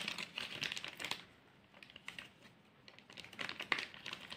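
Clear plastic bag crinkling and crackling as it is handled, in two spells of small crackles, one at the start and one near the end, with a quiet stretch between.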